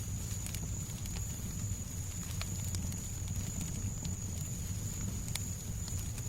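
Fireplace crackling, with irregular sharp pops and snaps over a steady low rumble of the fire and soft background noise. A thin, faint high tone runs steadily underneath.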